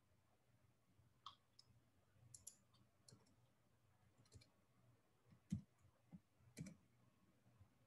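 Faint, scattered clicks of a computer keyboard and mouse being used, a few irregular taps over near silence, the loudest about five and a half seconds in.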